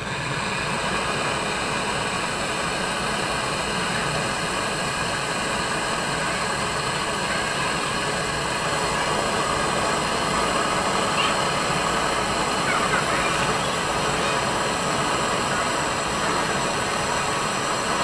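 Brazing torch flame coming on suddenly and then hissing steadily as it heats a copper refrigerant pipe joint on an air conditioner's outdoor unit, to unsolder the pipe.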